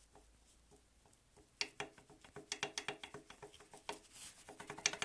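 Irregular metal clicks and light knocks from hand-handled parts of an IZh Planeta motorcycle engine, starting about a second and a half in and coming faster and louder toward the end.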